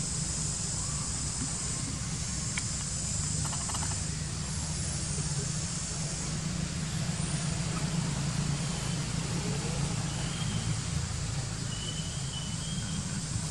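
Steady outdoor background noise: a constant low rumble under a high hiss, with nothing standing out.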